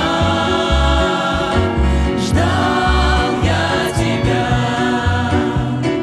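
Church worship ensemble performing a hymn: several voices singing together over violin, keyboard, upright bass and acoustic guitar, with a walking bass line underneath.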